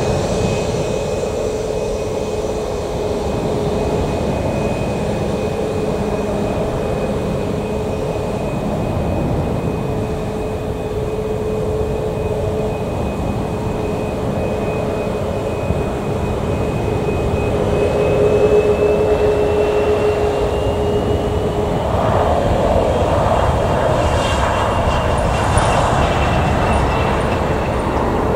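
Boeing 737 MAX 8's CFM LEAP-1B jet engines running at low taxi thrust: a steady jet whine over a low rumble. The whine rises slightly in pitch about two-thirds of the way through, and the rushing noise grows a little toward the end.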